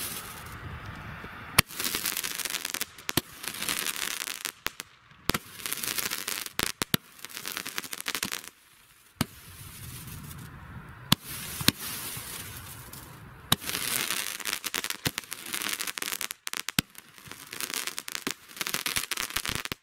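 "Eruption" consumer firework cake firing: a sharp report every second or two, each followed by a hissing spray of crackling stars. The shots stop right at the end.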